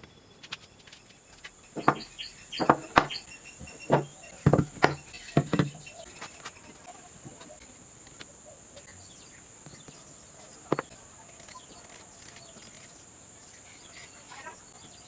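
A burst of sharp knocks and clacks, about ten in four seconds, then a single knock later on, over a steady high-pitched whine.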